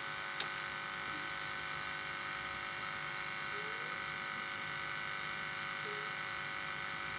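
A large pot of chicken feet in water at a rolling boil, under a steady buzzing hum that does not change.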